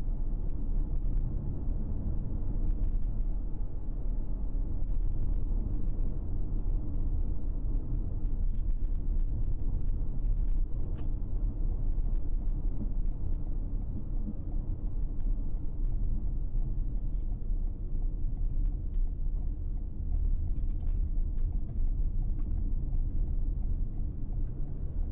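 Steady low rumble of a car driving on a paved road, heard from inside the cabin.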